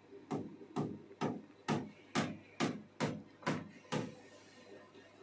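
Hammer striking, nine even blows about two a second, each with a short ring, then stopping.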